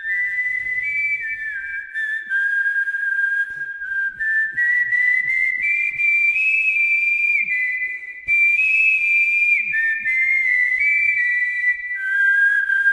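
A person whistling a slow melody: long held notes that step up and down in pitch, with short slides between some of them.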